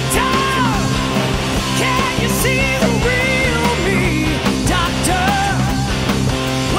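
Rock band playing high-energy rock: electric guitar, bass and drums, with a melodic lead line that bends and slides in pitch over the steady accompaniment.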